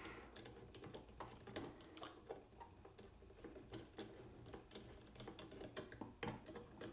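Faint, irregular small metal clicks and ticks of a small screwdriver turning the end cap screw into a rifle's magazine tube.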